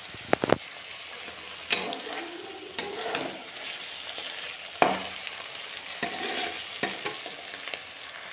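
Paneer, peas and onions sizzling in oil in a kadhai, with a steel spatula scraping and knocking against the pan as it is stirred. The sharp scrapes come in a cluster right at the start and again every second or so, the loudest about five seconds in.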